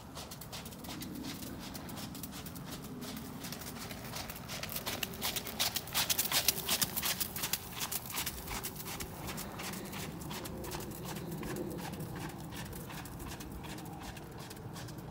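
Horse's hoofbeats on wet gravel-and-sand arena footing, a steady run of crunching strikes under a ridden horse. They grow loudest from about five to eight seconds in as the horse passes close, then fade as it moves away.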